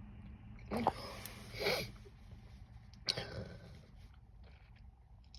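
A woman sneezing: voiced catches of breath about a second in, then a sharper burst about three seconds in.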